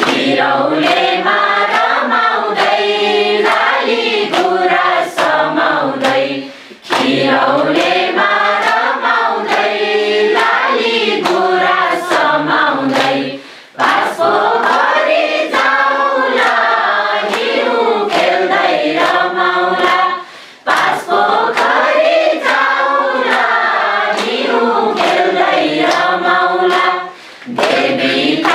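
A mixed group of adults singing a Nepali children's song together and clapping in time. The sung phrases pause briefly about every seven seconds.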